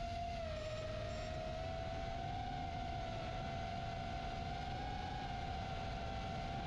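FPV quadcopter's motors and propellers whining at a steady pitch that wavers and rises a little, as the drone flies a test flight.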